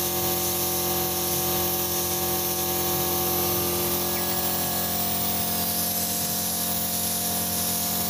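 Gravity-feed paint spray gun hissing steadily as it sprays finish onto a wooden tabletop, over a steady machine hum.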